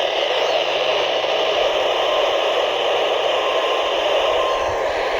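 Heavy static hiss from a weak NOAA Weather Radio station on a radio receiver. A faint steady tone fades in and out under the noise in the second half.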